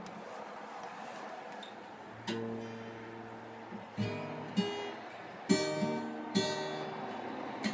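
Acoustic guitar strummed: after about two seconds of faint hiss, five chords are struck a second or so apart, each left ringing.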